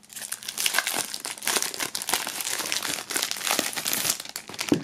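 Clear plastic foil sleeve crinkling and crackling continuously as it is opened and a hardcover notebook is slid out of it.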